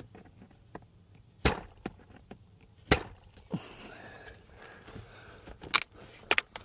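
Sharp clicks and knocks of hard plastic console-lid parts being handled and fitted, with two louder knocks in the first half and a quick pair of clicks near the end, and faint rustling in between.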